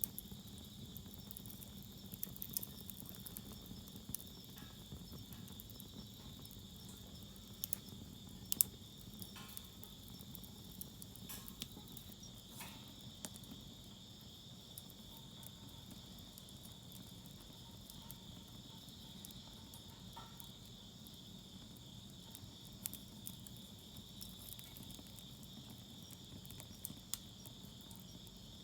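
Wood fire in a fire pit crackling, with scattered sharp pops, one louder snap about a third of the way in. A steady high insect trill, like crickets, runs underneath.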